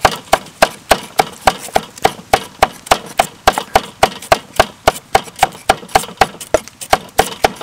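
Cleaver chopping red chilies on a round wooden chopping board: a steady run of sharp knocks, about four a second.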